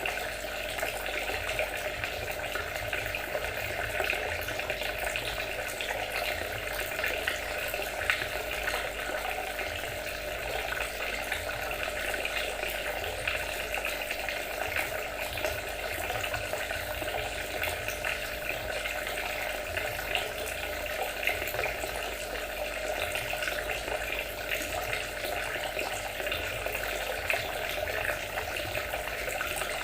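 Water trickling and splashing steadily, with a few brief louder splashes.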